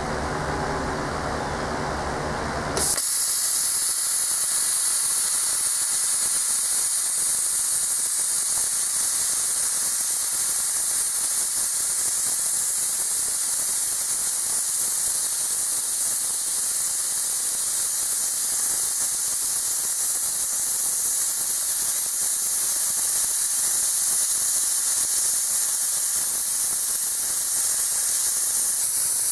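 A plasma cutter cutting half-inch steel plate: after a low steady hum, the arc strikes suddenly about three seconds in and a loud, steady hiss runs on as the torch is drawn along the cut.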